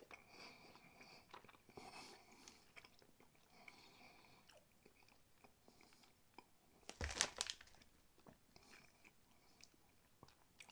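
Faint close-mouthed chewing of a small chocolate-coated biscuit sweet with a soft centre, with light crunches of the biscuit. A louder short noise comes about seven seconds in.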